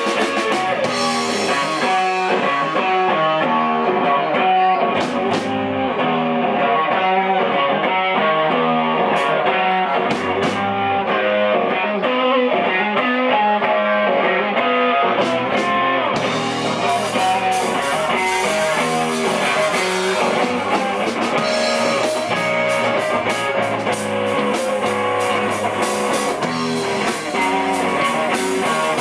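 Live rock band playing an instrumental passage: electric guitar to the fore over bass guitar and drums. About halfway through, the drummer starts playing the cymbals steadily and the band sounds fuller.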